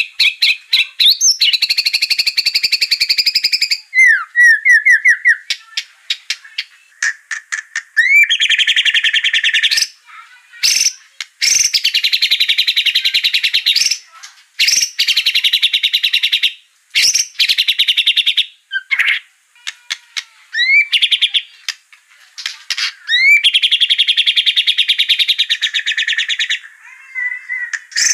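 White-rumped shama (murai batu) in full, fired-up song: long fast rattling trills of one to three seconds, broken by short rising whistles and quick runs of sharp clicks. This is the agitated 'gacor emosi' singing used as a lure to set other shamas singing.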